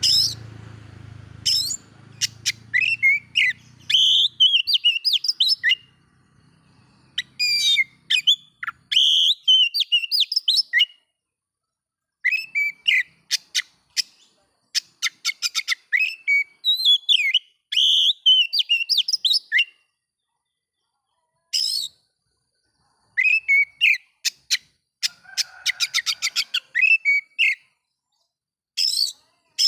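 Oriental magpie-robin singing: bursts of rapid, varied whistled phrases mixed with sharp clicks, broken by short silences. A faint low hum lies under the first few seconds.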